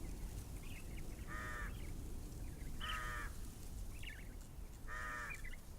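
A bird calling three times, about every two seconds, each call short, with fainter chirps in between.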